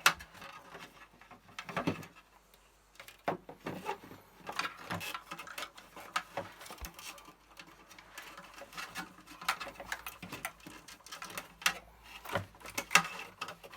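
Irregular light clicks, taps and rustling of hands working a cable through the plastic hoops and clips of a Commodore MPS-801 dot-matrix printer's casing.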